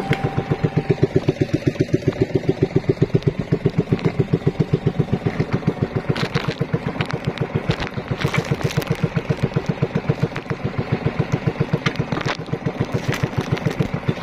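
A small wooden fishing boat's inboard engine running at steady speed, with an even pulsing beat of about five beats a second. A few brief sharper noises come through in the middle and near the end.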